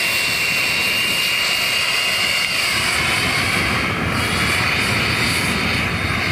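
Jet Joe Jr model gas turbine on a Stryker RC jet running with a steady high whine over a rushing noise as the plane flies away after its hand launch.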